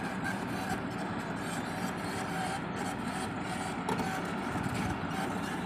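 XCMG crawler excavator's diesel engine running steadily while the boom swings with the bucket raised.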